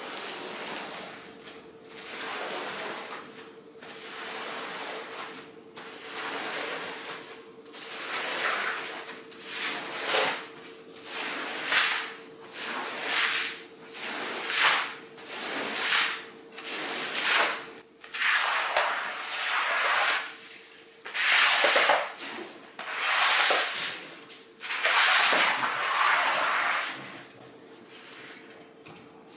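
Repeated push-pull strokes of a cleaning tool across a carpet, scraping swishes about one a second that come faster and louder in the middle, over a faint steady hum.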